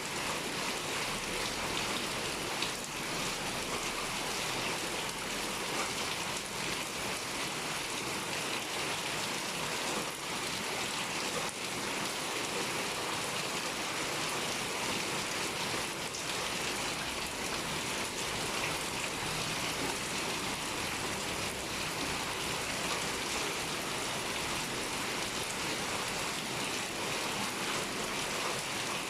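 Heavy rain pouring steadily, a dense even hiss of drops with occasional single drops ticking out.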